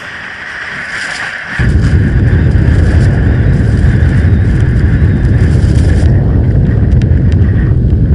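A loud, deep rumble standing for the earthquake, coming in suddenly about a second and a half in after a rising hiss, then holding steady.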